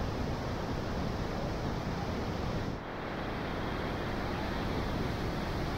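Steady rush of falling water from Vernal Fall, heard as an even, unbroken noise. It dips briefly about three seconds in, then carries on at the same level.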